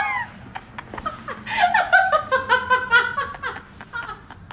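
A person laughing: a quick run of ha-ha bursts starting about one and a half seconds in and ending about two seconds later, with a few light clicks scattered around it.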